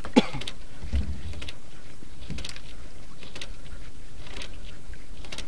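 Steady background noise of a small boat at sea, with scattered clicks and a dull knock from handling the fishing line and gear. A short, sharp falling squeak just after the start is the loudest sound.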